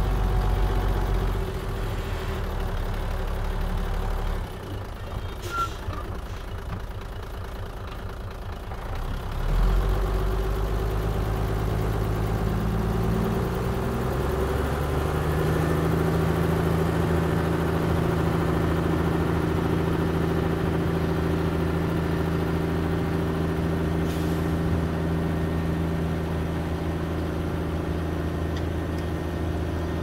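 Diesel engine of a compact earthmoving machine running at low revs, dropping quieter for a few seconds. About ten seconds in it gets louder, then its pitch rises as it is throttled up, and it holds steady at higher revs from there on.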